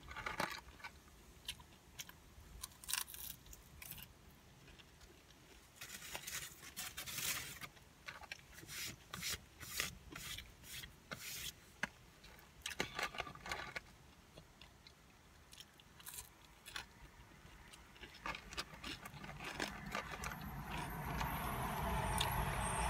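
Hand rummaging in a paperboard fries carton: scattered rustles and small scraping clicks as fries are picked out. Near the end a steady rush of noise swells up.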